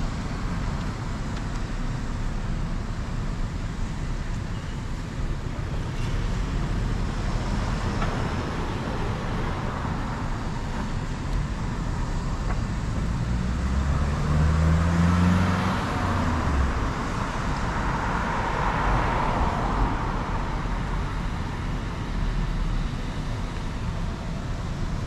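Road traffic: cars passing on a multi-lane road over a steady low rumble. About halfway through, one vehicle passes close, its engine rising in pitch and its tyre noise swelling and then fading.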